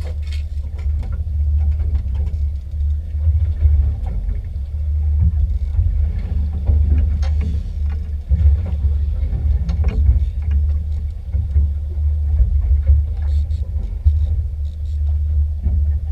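Fishing boat under way: a steady low rumble from the engine and the run of the hull, swelling and dipping unevenly, with faint scattered clicks and knocks.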